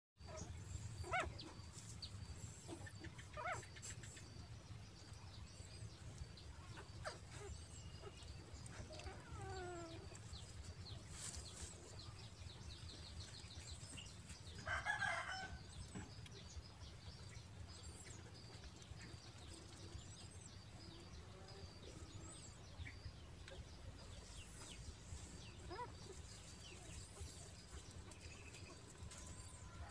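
Chickens clucking, with a rooster crowing once about halfway through and small birds chirping, over a low steady rumble.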